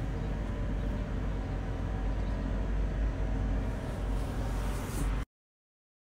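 Oil sizzling in a pot as batter-coated green gram balls deep-fry: a steady hiss over a low rumble, which cuts off abruptly about five seconds in.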